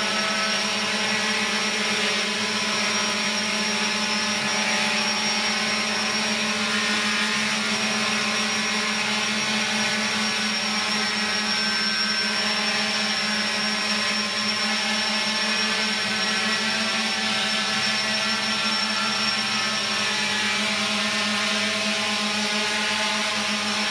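Small quadcopter drone's electric motors and propellers running steadily in flight: a constant hum with higher whining tones layered above it.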